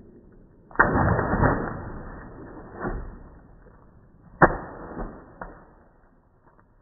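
Water-filled balloon on an elastic string slapping down onto a stone patio several times. The first slap, about a second in, is followed by about a second of rushing noise; the sharpest slap comes about halfway through, with a couple of lighter knocks after it.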